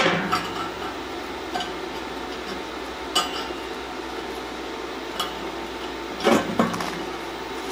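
Metal clinks and knocks of steel pieces against a steel welding table: a handful of separate sharp strikes at uneven intervals, the loudest at the very start and a pair a little after six seconds in.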